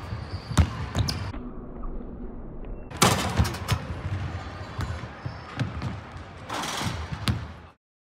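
A basketball bouncing on a hardwood gym floor: a series of sharp bounces and thuds, the loudest about three seconds in. The sound cuts off suddenly near the end.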